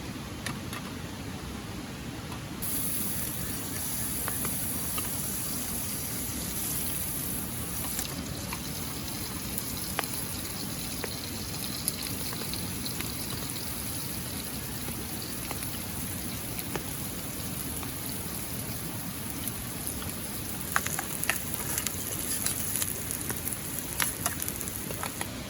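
Steady rush of river water and light rain. A higher hiss comes in about two and a half seconds in, and scattered light taps and clicks grow thicker near the end.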